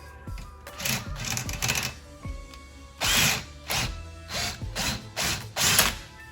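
Drill with a socket adapter running in short bursts, about six, as it drives the recliner's frame screws, over background music.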